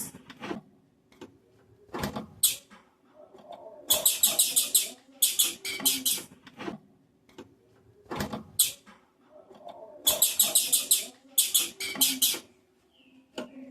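Female blue-black grassquit (tiziu) giving rapid runs of high, thin chirps in two bouts about six seconds apart: the female call that excites males.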